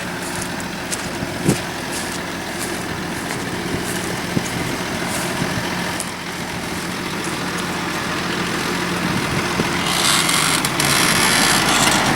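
Tractor engine running steadily under load as it pulls a five-furrow reversible plough, slowly growing louder as it approaches. A loud hiss joins in for about two seconds near the end.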